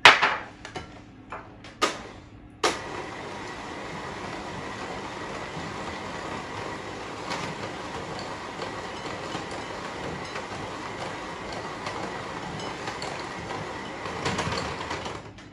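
A few knocks, then a Bosch electric hand mixer switched on about three seconds in, running steadily as its beaters churn a thick butter, sugar and biscuit-crumb dough, and switched off just before the end.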